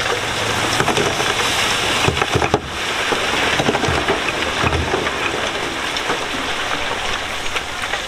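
Loose stone and gravel grinding and tumbling under heavy machinery, a dense crackle with a few heavier knocks, over a diesel engine running low underneath.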